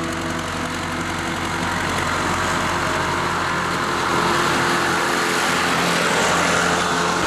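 Tractor engine running while mowing a meadow, a steady drone that grows gradually louder.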